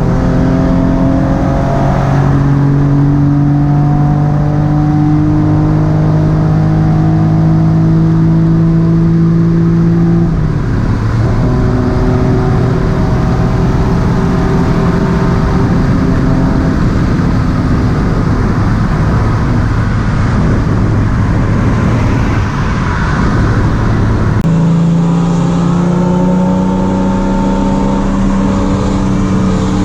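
Car engine pulling hard at full throttle during a roll race, its note steady or rising slowly over a constant rush of wind and road noise. The engine note changes abruptly twice, about ten seconds apart.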